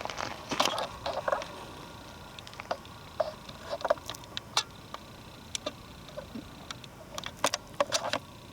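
Footsteps on a forest floor: irregular crackles and snaps of twigs and dry leaves underfoot.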